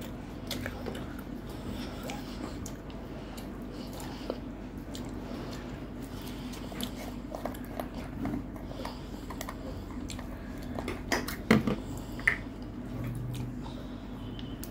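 Close-miked eating-show sounds of eating with the fingers: chewing, the soft squish of rice and vegetables being mixed by hand, and light clicks of fingers and food against a metal plate. A few sharper clicks and knocks come about eleven to twelve seconds in.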